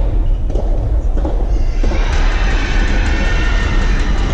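Spectators in a large hall break into cheering and clapping about two seconds in, over a steady low rumble.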